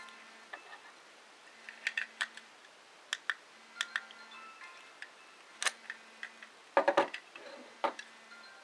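Clicks and knocks of DSLRKIT PT-16NE plastic flash trigger receivers being handled and set down on a wooden tabletop, with a loud cluster of knocks about seven seconds in. A faint low hum pulses on and off about every second and a half.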